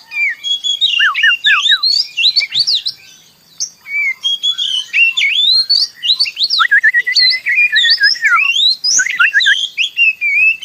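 Songbird song: a fast, varied stream of whistled notes and chirps sliding up and down, with a short pause a few seconds in.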